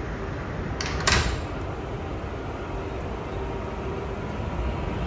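R188 subway car doors sliding shut with a sharp thud about a second in, then the steady hum of the stopped car with a faint tone.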